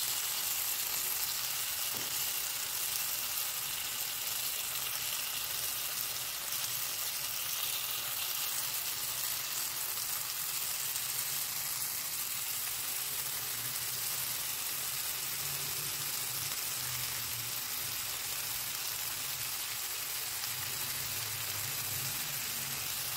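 Skewered paneer, capsicum, onion and tomato frying in a little oil in a nonstick pan: a steady, even sizzle.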